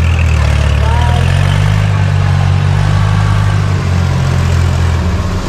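Engine of a mechanised rice harvesting machine running steadily with a low drone.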